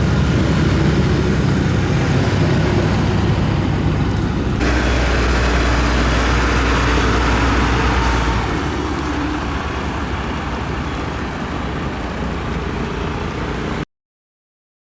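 Heavy road-construction machine engines running steadily, the sound changing abruptly twice as one engine gives way to another, then cutting off suddenly to silence near the end.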